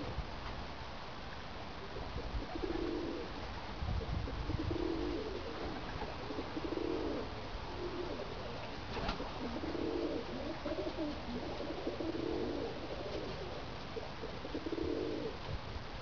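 Domestic pigeons cooing: low, rolling coos about a second long, repeated every couple of seconds, over a steady background hiss.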